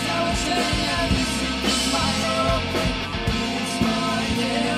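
Live rock band playing: a woman singing over electric guitar, bass guitar and drums.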